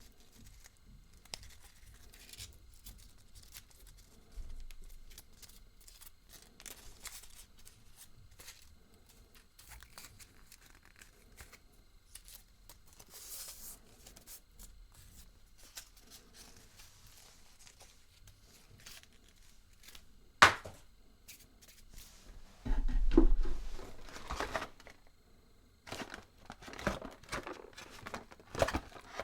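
Hands crinkling and tearing wrapping, with scattered small clicks. A single sharp click comes about twenty seconds in, and louder bursts of handling follow near the end.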